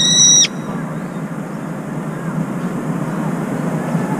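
Brown-eared bulbul giving a shrill, held 'piiiik' cry that cuts off abruptly about half a second in. It is the shriek it gives on dipping in and out of its cold bath water. After it, a steady low background rumble.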